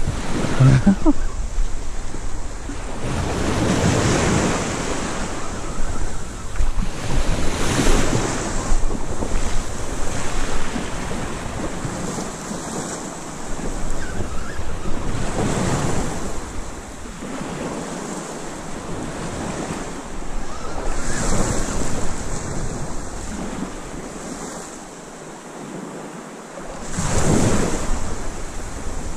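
Sea waves breaking on the beach in repeated surges every few seconds, with wind buffeting the microphone.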